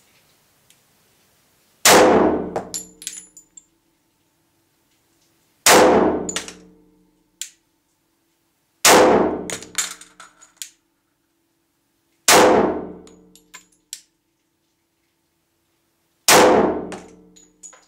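Five pistol shots from a compensated Glock 24C in .40 S&W, fired singly about three to four seconds apart, each ringing on in the brick-vaulted cellar range. Every shot is followed by a few small clinks of the spent case landing, and the pistol cycles normally on new factory ammunition.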